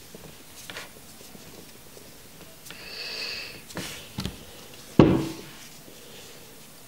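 Small handling and rubbing noises as cotton wick is threaded through a rebuildable atomizer's coil on a vape box mod, with a brief high squeak about three seconds in and one sharp knock about five seconds in.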